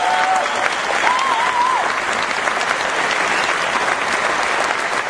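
Theatre audience applauding a musical's curtain call, with one brief wavering high call from the crowd about a second in.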